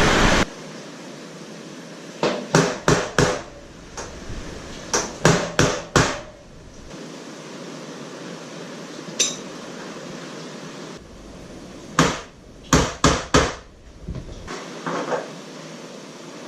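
Hammer blows in three quick runs of about four strikes each, over a steady background hiss, as a storm-damaged roof is patched up.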